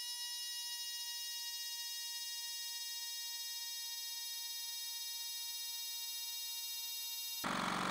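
A steady, buzzer-like alarm tone held at one pitch for about seven seconds, setting the tension as the compressor's pressure gauge climbs. It cuts off suddenly near the end, and the air compressor's motor noise comes back.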